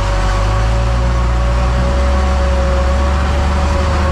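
Heavy diesel engines running steadily, heard from inside the cab of an Autocar dump truck, with a Claas self-propelled forage harvester chopping corn alongside. The sound is a deep, even drone with a steady whining tone above it.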